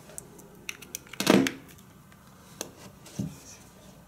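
Clicks and handling noise as a portable music player and its audio cable are handled and its buttons pressed, with a louder short thump about a second in and a smaller one about three seconds in.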